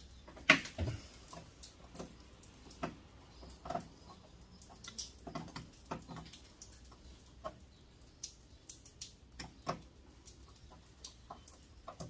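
Hand tools clicking, tapping and knocking on metal as a small brass dial is worked off a furnace part, in scattered irregular strokes with one sharp knock about half a second in.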